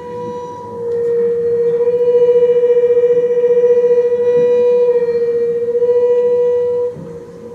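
Double bass played with the bow, holding one high sustained note with a slight regular wavering. The note swells about a second in and dips briefly near the end at a bow change before sounding again.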